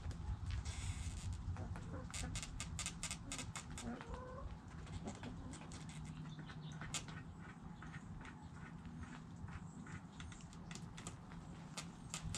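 Chickens scratching and pecking at loose dirt: quick runs of sharp ticks and scrapes, densest about two seconds in and again near the end, with a few soft clucks. A low steady hum runs underneath.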